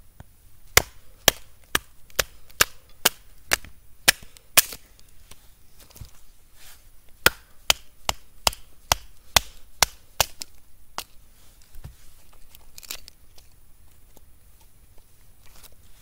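Wooden baton striking the spine of a knife driven into a short birch log, splitting it. Sharp knocks about two a second, nine in a row, then a pause of a couple of seconds, eight more, and two weaker ones near the end.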